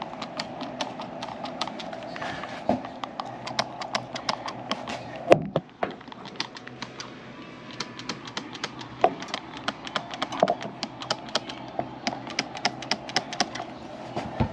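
Quick, irregular clicks and taps from hands working at the evaporator coil's copper lines and brass fittings, several a second, with one louder knock about five seconds in, over a steady hum.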